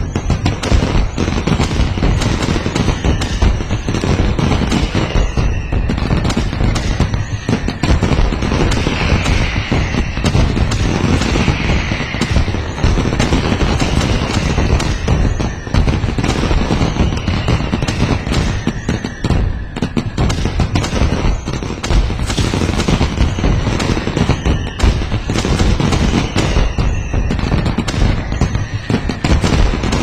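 Dense fireworks display: a continuous run of bangs and crackling bursts, with a whistle falling in pitch every few seconds.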